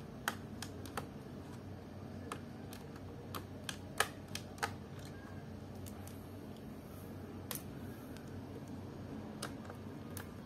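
Irregular small clicks and taps of fingers and a screwdriver handling the plastic underside and hard-drive bay of a Samsung NP300E4X laptop during disassembly. Most come close together in the first half, with a few more near the end.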